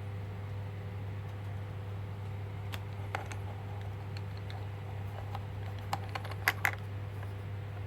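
A handful of light clicks and taps over a steady low hum, the loudest a quick cluster near the end.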